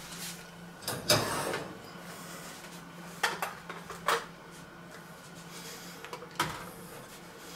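Wire oven rack pulled out on its runners and a metal baking dish set down on it: a few separate metallic knocks and clatters, over a steady low hum.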